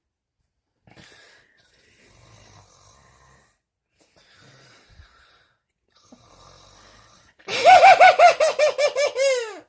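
Snoring with faint, soft breaths, then near the end about two seconds of a loud, high-pitched wheezing snore that pulses about six times a second and drops in pitch as it stops.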